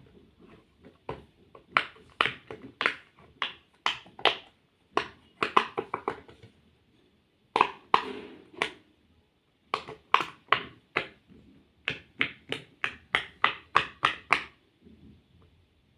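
Fidget toy being clicked and tapped: sharp separate clicks, about two to three a second, in runs broken by a couple of short pauses.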